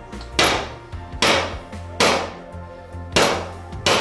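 Steel hammer striking the top of a mower deck spindle shaft to drive it down out of its housing, five ringing metal blows at an even pace of about one every 0.8 s; the spindle is coming out fairly easily.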